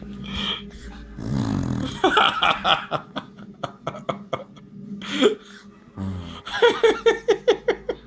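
A toddler blowing a fart-like raspberry against a leather sofa arm, a low rough buzz about a second in and again near six seconds, with laughter in short repeated bursts between and after.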